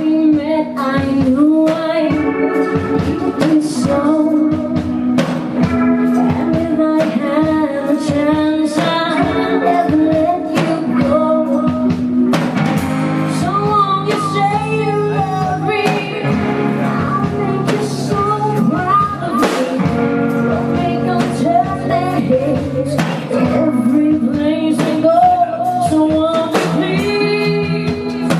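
Live band playing a song: a lead singer over electric guitar, bass and a drum kit keeping a steady beat.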